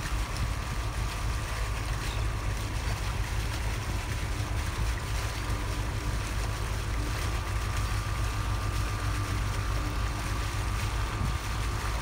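A boat under way at a steady speed: a continuous low rumble with wind buffeting the microphone and a faint steady whine over it.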